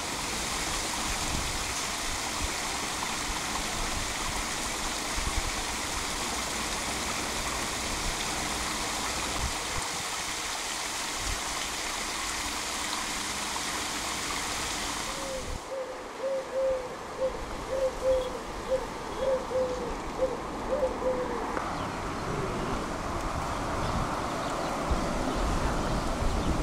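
Steady rushing water noise for about fifteen seconds, then a run of about fifteen short hooting notes from an animal, fairly evenly spaced over several seconds.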